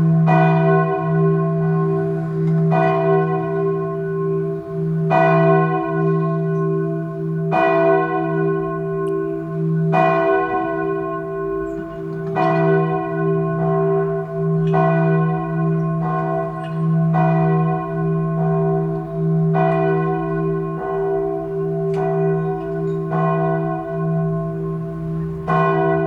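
A single church bell tolling slowly, struck about every two and a half seconds, each stroke ringing on into the next over a steady low hum.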